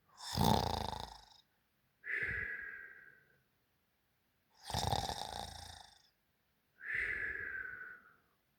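Person snoring, two full breaths: each a loud rattling snore of about a second, followed by a whistling breath that falls in pitch.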